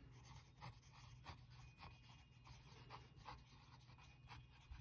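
Faint scratching of a pen writing on a paper textbook page, a quick run of short strokes.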